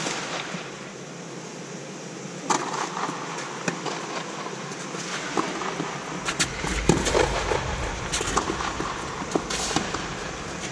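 Tennis rally on a clay court: rackets hitting the ball in sharp cracks a few seconds apart, with scuffing footsteps on the clay and a steady background hum.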